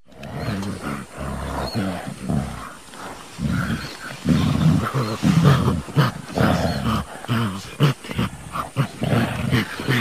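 Gorilla vocalising: a run of low, rough roars and grunts that starts suddenly and grows louder about three and a half seconds in.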